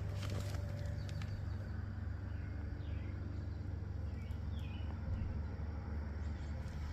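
Outdoor ambience: a steady low rumble with a few faint, short bird chirps around the middle.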